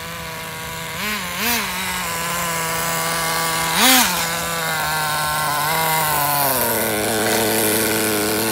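Small two-stroke nitro (glow) engine of an HSP Backwash 94166 1/10 RC buggy running near idle, blipped up briefly twice about a second in and once more, loudest, about four seconds in, then settling to a lower idle near the end.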